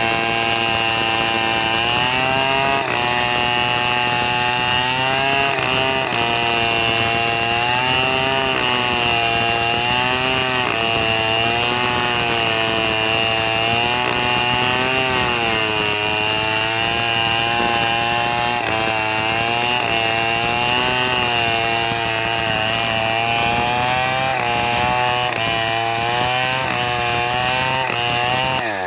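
Homemade chainsaw running hard while ripping a mango log lengthwise into plank stock. Its engine pitch wavers up and down continuously as the cutting load changes.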